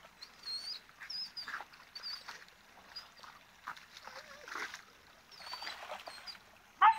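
A dog whining in a run of short, high-pitched, wavering whimpers, with one loud sharp yelp near the end: an older dog fretting on the bank while a younger dog swims out of its reach.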